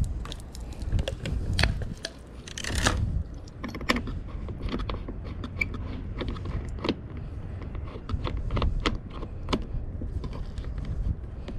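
Scattered clicks, knocks and scrapes of plastic and metal hose fittings being handled and threaded onto the outlet of a Greenworks electric pressure washer, with a brief louder rustle about three seconds in, over a low rumble.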